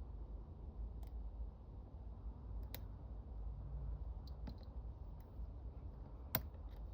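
Sparse, faint clicks of a lock pick working the pins of Jack Peters' "Poop" challenge lock during picking, the sharpest click about six seconds in, over a low steady hum.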